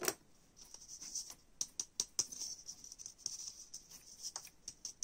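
Light scratching and pattering of glitter being worked onto a glue-coated plastic bauble half held over a cardboard box, in short hissy patches with many small ticks, and a sharp click at the very start.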